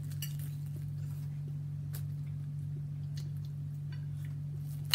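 Faint scattered clinks of a fork against a plate over a steady low hum, with one sharper clink near the end.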